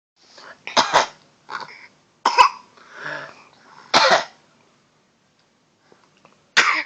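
Fake coughing: a run of short, sharp coughs, about four loud ones with softer coughs between, then a pause of about two seconds before one more cough near the end.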